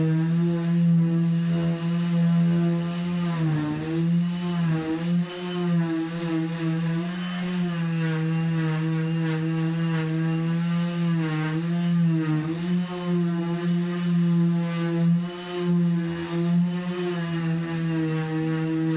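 Cordless orbital sander running steadily as it sands old paint off a wooden chest-of-drawers top, its motor hum dipping in pitch briefly a few times.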